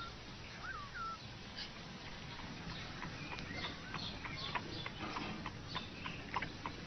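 A cat working at a wooden puzzle box: a run of light, irregular clicks and taps, after a few faint short chirps near the start.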